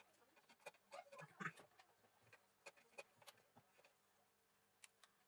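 Faint light clicks and taps of hands handling a phone's screen frame, with a brief louder rustle about a second and a half in.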